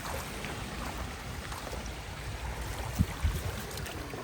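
Steady wash of beach surf with a low wind rumble on the microphone, and two short knocks about three seconds in.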